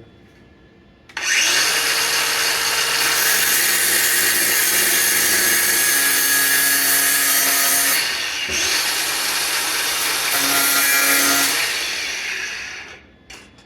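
Grinder with a cutting wheel spinning up and cutting into scrap steel. It cuts steadily, pauses briefly about eight seconds in, cuts again, then winds down near the end.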